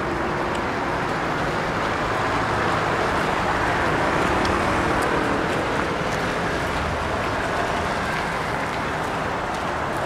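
Steady city traffic noise, cars passing on a wet, snowy road, swelling a little about four seconds in.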